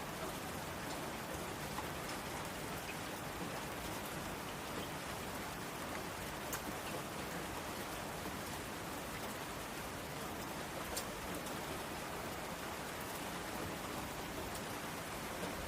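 Steady rain on a window, an even hiss with a few sharp ticks now and then.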